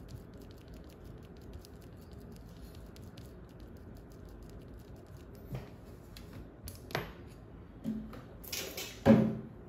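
A few small, quiet clicks and taps of a paintbrush stirring paint mixed with thinner in a small palette, over low room background, with a louder short sound near the end.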